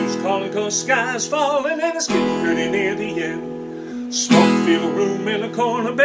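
A man singing while strumming a black cutaway acoustic guitar, chords struck about every two seconds, with wavering sung notes held between strums.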